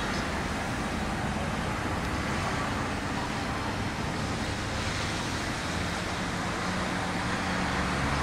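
Dodge Grand Caravan minivan driving past with its engine running and tyres on pavement, over a steady wash of road traffic.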